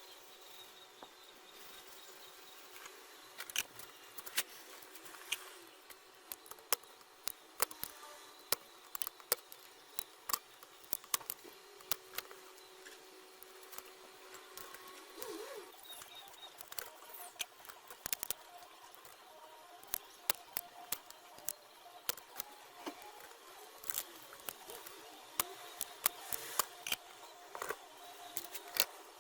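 Irregular sharp clicks and light taps, some close together and some spaced out. A faint low steady tone runs for a few seconds in the middle.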